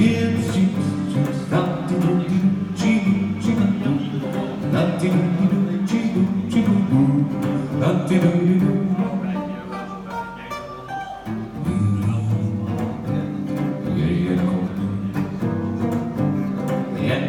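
Hollow-body archtop guitar played through a small amplifier, an instrumental passage of a song; the music grows briefly quieter about ten seconds in, then picks up again.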